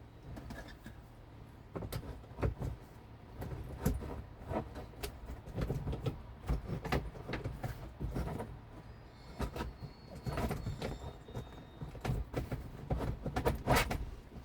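Irregular clicks, knocks and rattles of metal fittings being handled and worked on a boat's bimini frame, over a low rumble.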